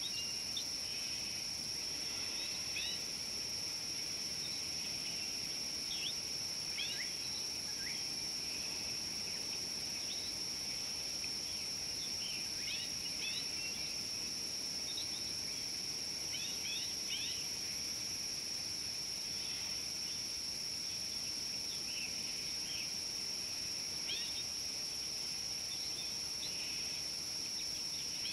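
Steady high-pitched insect drone, with many short bird chirps and calls scattered throughout.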